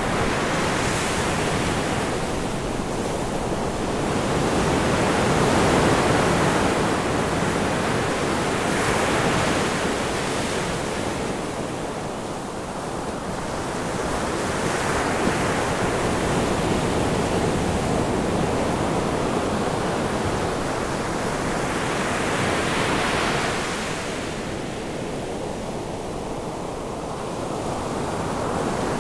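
Ocean surf: a steady wash of breaking waves that swells and fades every few seconds.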